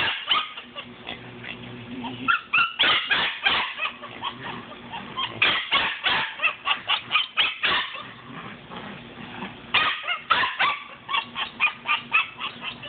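Eight-week-old Belgian Malinois puppy yipping and barking in quick runs during rag play, a high-drive puppy worked up by the prey game. There is one long run of yips, a pause of about two seconds, then a second run.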